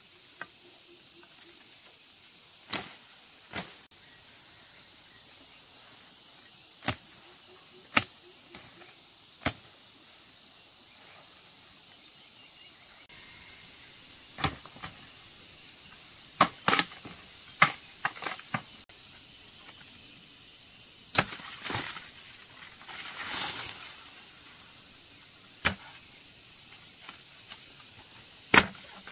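Machete chopping sugarcane stalks: sharp, irregular blows, some in quick pairs, over a steady high-pitched insect drone.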